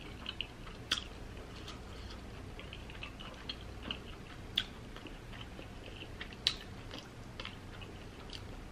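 Close-miked chewing: soft wet mouth clicks and lip smacks scattered throughout, with a few sharper clicks standing out.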